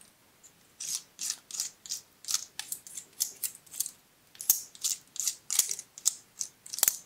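Flat wooden stick scraped along the scales of a pine cone to clear off leftover glitter glue: a run of short, dry scratches, about three a second and uneven, starting about a second in.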